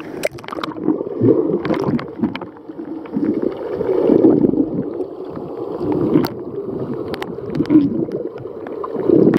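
Muffled water noise heard underwater in a swimming pool: a loud, uneven low rushing with bubbles gurgling and scattered sharp clicks as swimmers move around the submerged microphone.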